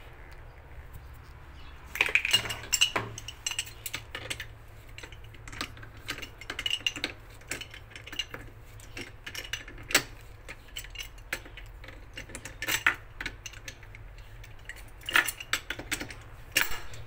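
Metal clinks and scrapes of a wrench on a galvanized steel pipe tee as it is screwed onto a wall elbow and tightened, in irregular clusters, densest about two seconds in and near the end.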